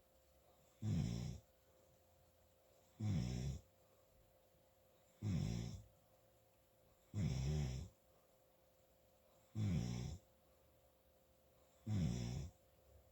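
Loud snoring in a steady rhythm: six snores, one about every two seconds, each about half a second long.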